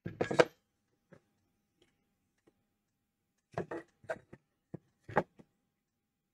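Short clicks and knocks of a circuit board and hand tools being handled on a wooden workbench. A quick cluster comes right at the start and a single tap a second later. Then there is a string of separate taps and clicks from about three and a half seconds in.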